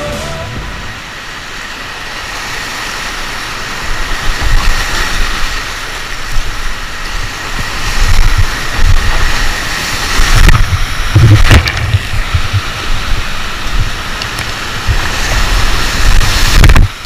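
Rushing whitewater around a kayak running a rapid and dropping into a churning hole, with water and wind buffeting the camera's microphone in heavy low gusts. Loud splashes hit twice, about ten and eleven seconds in.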